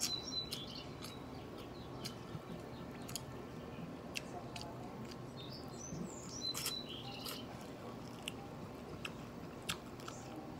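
Close-up eating sounds from someone eating rice and fried pork ribs by hand: chewing with many small clicks and smacks. A bird chirps briefly twice, once at the very start and again about six seconds in.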